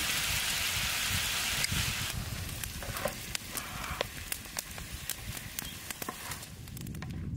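Diced lamb liver and peppers sizzling in a large metal frying pan over a wood fire. From about two seconds in the sizzle drops and a wooden spoon and slotted spatula stir through the food, with a run of sharp clicks and knocks against the pan.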